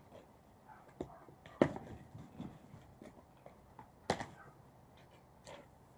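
Cardboard box being handled and tipped on a glass tabletop during unboxing: two sharp knocks, about a second and a half in and about four seconds in, among softer cardboard rustling, scraping and light clicks.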